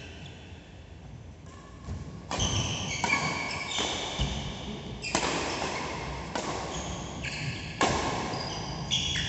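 Badminton rally: racket strings hitting the shuttlecock with sharp cracks every one to two seconds, starting about two seconds in, with short high squeaks of court shoes on the mat between hits.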